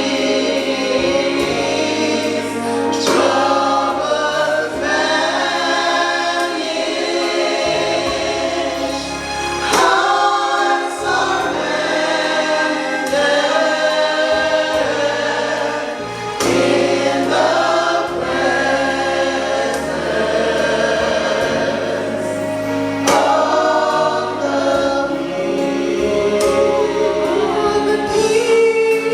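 Choir singing a gospel hymn over a held accompaniment of sustained low notes, phrase after phrase.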